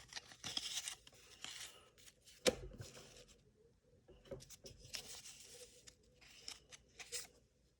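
Cardboard baseball cards being handled and flipped through: several short, faint papery swishes as cards slide over one another, with a few light clicks, one sharper about two and a half seconds in.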